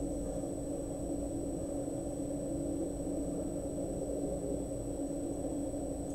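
Steady low hum with a faint hiss, unchanging throughout, with no distinct events.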